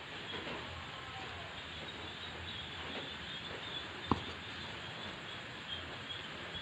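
Crickets chirring steadily over a faint hiss, with one sharp metallic-sounding click about four seconds in.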